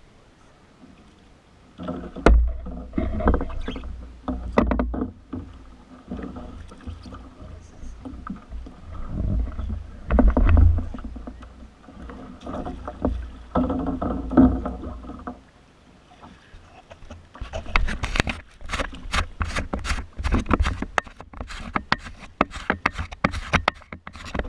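Paddling a canoe or kayak on calm water: paddle splashes and knocks with swells of deep rumble. Near the end a quicker, busier run of sharp splashes and knocks.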